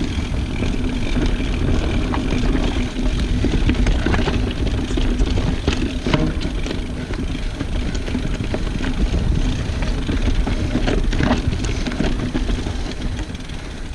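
Mountain bike rolling downhill on rocky, leaf-covered singletrack: a continuous tyre rumble over dirt and rock, with many short rattles and clacks from the bike.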